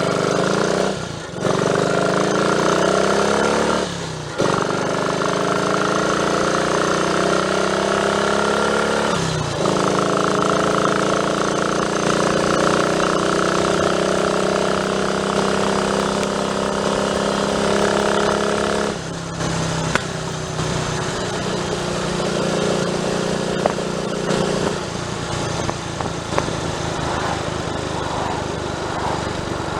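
Triumph Tiger Cub's single-cylinder four-stroke engine running under way. Its pitch climbs and then breaks off briefly at each gear change, four times in the first twenty seconds, before it settles into steadier running.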